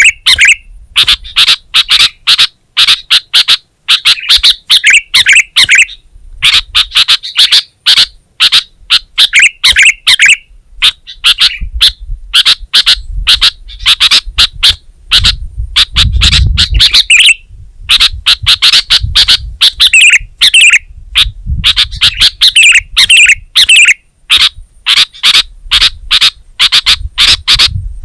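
Sooty-headed bulbul (kutilang) singing loudly in repeated bursts of rapid, chattering notes, each a second or two long with short pauses between. A low rumble runs under the song about halfway through.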